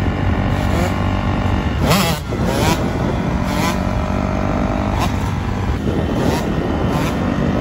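Two-stroke dirt bike engine running hard through wheelies, its revs climbing and dropping again and again.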